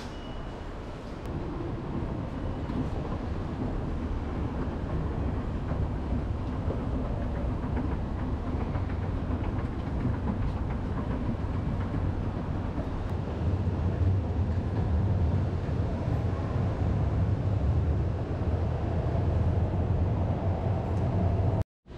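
Railway station rumble from trains and station machinery: a steady low rumble that grows louder over the first half and cuts off abruptly near the end.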